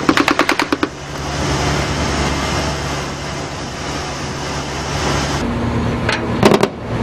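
A rapid burst of machine-gun fire, about a dozen shots in under a second, then a boat engine running steadily under wind and water noise. Near the end comes a single shot and another short burst. This is live fire from a naval patrol boat into the sea near fishing boats.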